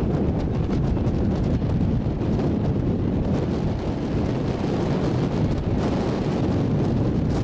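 Wind buffeting the microphone aboard a moving ferry boat, a steady loud low rush with no letup.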